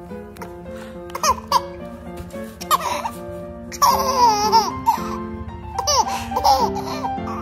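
Baby giggling and squealing with delight in several short bursts, the longest and loudest about four seconds in, over background music.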